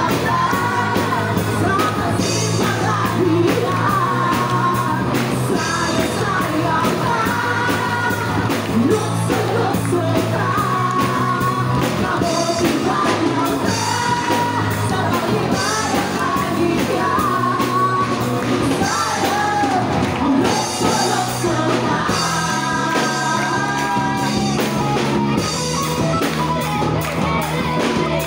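Live band music: women singing an upbeat song into microphones over a drum kit with a steady beat, amplified through stage speakers.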